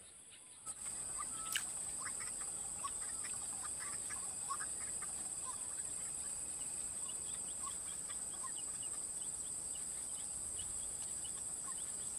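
Swamp ambience: a steady high-pitched insect drone, like crickets or cicadas, with scattered short chirps over it. It starts about a second in after a quieter moment, with a single click shortly after.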